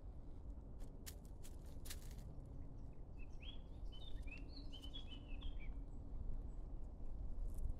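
A bird chirping a quick run of short notes for two or three seconds, a few seconds in, after a handful of sharp clicks, over a steady low rumble.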